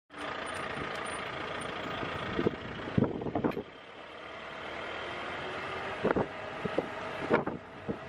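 A vehicle driving along a road: steady engine and road noise with wind. Sharp knocks come in two clusters, around the third second and again between the sixth and seventh, as the vehicle jolts.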